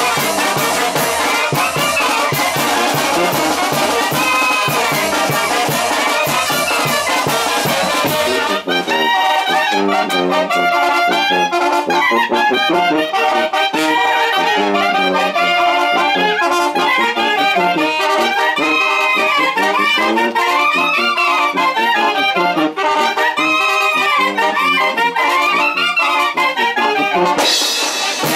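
Mexican brass band playing live: trumpets, saxophones, clarinets and sousaphone over timbales and cymbals. About eight seconds in, the sound cuts to a passage where the wind instruments carry a winding melody with little drumming.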